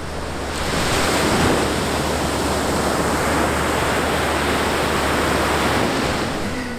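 Sea surf breaking and washing up a sandy beach, a steady rushing that swells about half a second in and eases off near the end.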